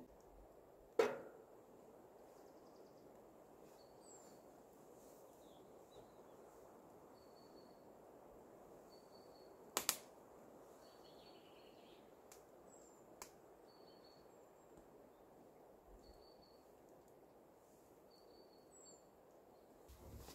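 Quiet forest ambience: faint short high bird notes repeat every second or two over a low steady hiss. A sharp knock sounds about a second in and another near the middle.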